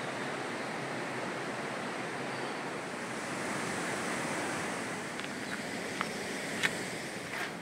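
Steady rush of the Cares river flowing over rocks in the gorge. In the last couple of seconds a few footsteps scuff on the gravel path, roughly one every 0.7 s.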